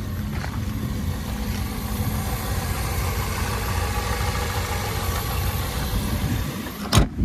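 Chevrolet 2.5L Ecotec inline-four idling steadily, heard from over the open engine bay. Near the end a single loud thump, the hood being shut.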